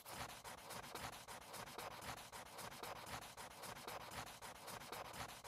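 Pencil scratching on paper in a quick, even run of strokes, about seven a second, fairly faint.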